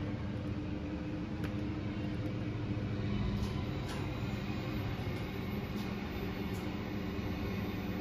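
Passenger lift car in travel: a steady hum and whoosh heard inside the car, with a couple of faint clicks.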